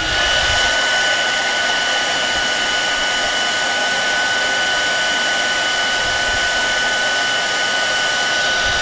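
Hair dryer blowing steadily on high, a constant rush of air with a thin steady whine, heating self-adhesive vinyl film to soften it so it can be shaped around the edge.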